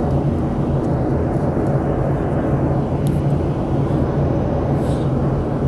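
Steady cabin noise of an airliner: a constant drone of engines and rushing air with a low hum beneath it.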